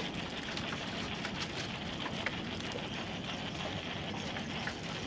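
Steady wash of sea water around a small boat, with faint scattered ticks and clicks.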